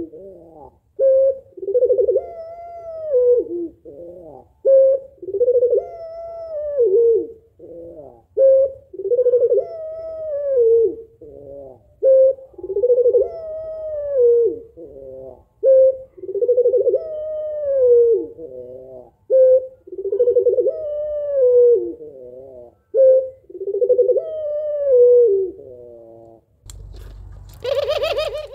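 Female puter pelung, a long-voiced breed of Barbary (ringneck) dove, cooing over and over. Each call is a short note and then a long arching coo that falls away at the end, coming about every three and a half seconds. Near the end a brief, louder, harsher noise breaks in.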